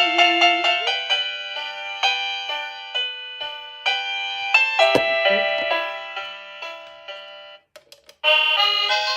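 Electronic doorbell chime playing a melody of struck, ringing notes, like an electric piano. The tune ends a little before the end, a few clicks sound in the short gap, and another chime tune starts. A dull knock sounds about five seconds in.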